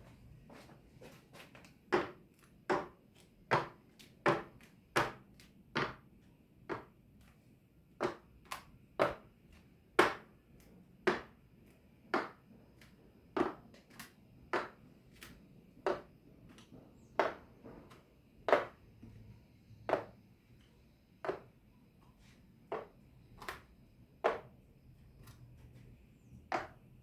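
A long series of sharp knocks or taps, about one a second, uneven in spacing and loudness, each with a brief ring.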